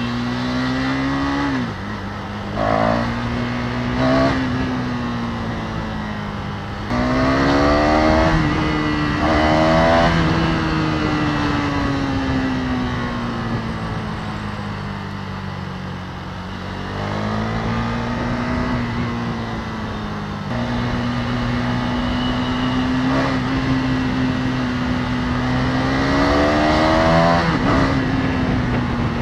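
KTM Duke 390's single-cylinder engine under way, accelerating through the gears: the engine note climbs, drops back at each upshift, and climbs again several times. Wind and road noise rush steadily underneath.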